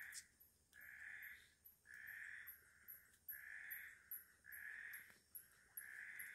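Night-time animal calling: a raspy call about half a second long, repeated a little more than once a second, over a fast, high-pitched chirping of about five chirps a second.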